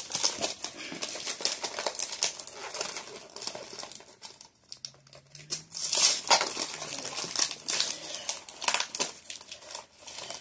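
Gift paper crinkling and rustling as a present is unwrapped, in quick irregular crackles, with a brief lull about halfway through before the crackling picks up again loudly.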